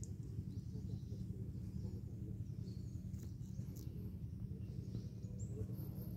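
A few faint, short bird chirps over a steady low hum.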